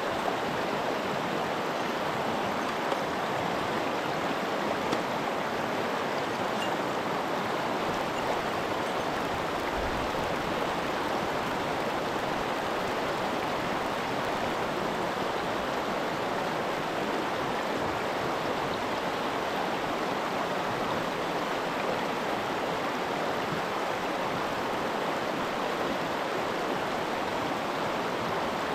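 Mountain stream flowing, a steady, even rush of water.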